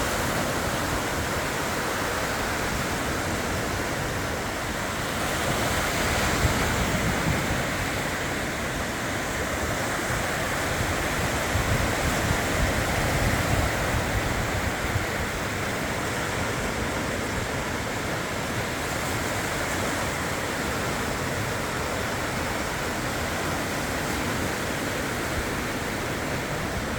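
Sea surf and strong wind: a steady rush of noise that swells louder about six seconds in and again between about eleven and fifteen seconds.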